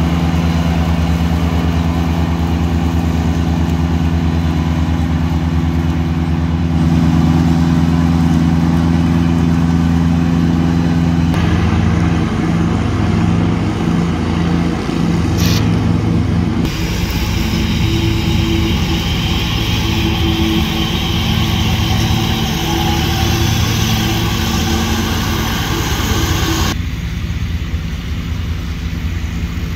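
Ride-on mower engines running steadily while cutting grass: a Ventrac compact tractor with a front mowing deck and a Husqvarna zero-turn mower. The engine sound changes abruptly three times as the shots switch between the machines.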